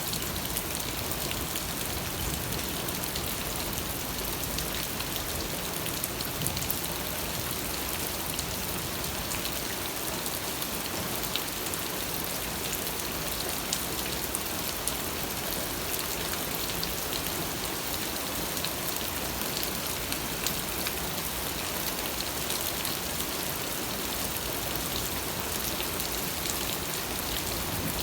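Steady rain falling on surfaces, an even hiss with scattered drop patter.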